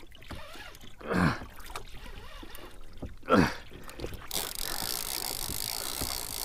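Large conventional fishing reel being cranked against a fish hooked deep, with a faint, even ticking from the turning reel. Two short, loud sounds slide down in pitch, one about a second in and one about three seconds in, and a steady hiss sets in about two-thirds of the way through.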